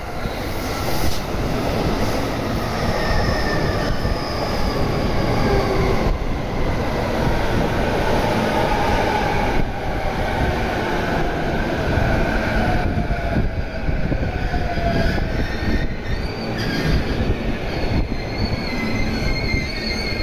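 JR East E233-1000 series Keihin-Tohoku Line electric train running past as it pulls into a station, with high wheel squeals and clicks from rail joints. Midway a whine falls steadily in pitch as the train slows.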